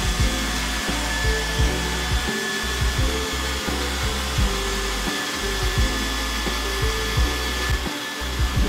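iRobot Roomba 966 robot vacuum running on a tile floor: a steady whir from its suction fan and brushes, with a thin high whine. Irregular low knocks come every second or so.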